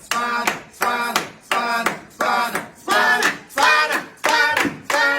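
A group chanting rhythmically in time with hand claps: each clap is followed by a sung or shouted syllable, at a steady pace of about three beats every two seconds, as spectators cheer on an eating challenge.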